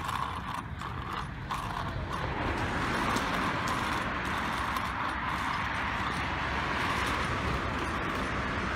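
Rapid clicking and rattling of riding along a tarmac path, giving way about two seconds in to a steady rush of wind and road noise.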